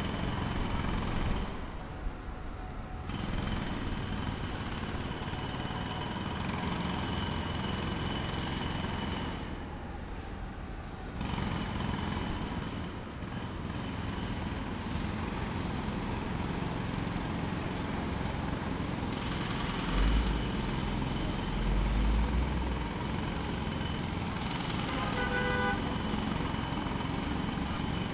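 Jackhammer pounding in a rapid, continuous stream of blows, with brief pauses about two seconds in and again around ten seconds in.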